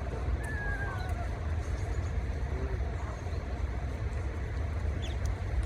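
Steady low rumble of distant road traffic, with a faint, brief falling whistle of a bird about half a second in.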